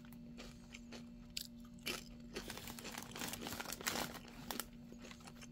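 Someone chewing a mouthful of thick-cut Miss Vickie's Smokehouse BBQ kettle-cooked potato chips: a run of irregular, faint crunches.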